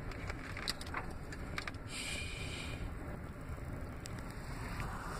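Car cabin noise while driving slowly: a steady low engine and road rumble, with a brief hiss about two seconds in.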